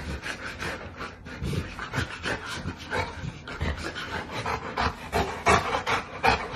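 A large dog panting in short, rhythmic breaths, about two to three a second.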